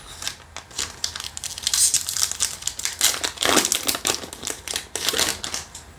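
Foil trading-card booster pack wrapper crinkling and crackling in irregular rustles as it is torn open and the cards are pulled out.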